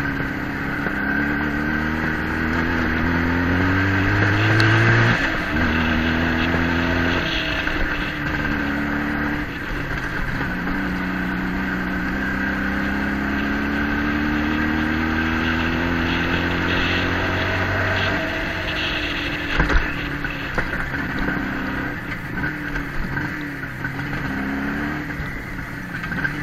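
Vehicle engine pulling under load, its pitch climbing steadily and dropping back about five seconds in, as with a gear change. It climbs again and eases off about eighteen seconds in, with one short knock soon after.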